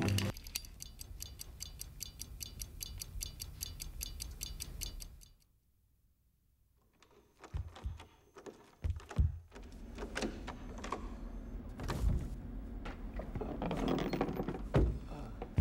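Rapid, even ticking for about five seconds that cuts off into near silence; after a short pause, irregular knocks and clattering.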